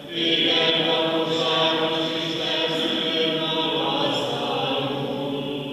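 Liturgical chant of the Divine Liturgy sung by several voices together, long held notes moving in steps, a new phrase starting just after the opening.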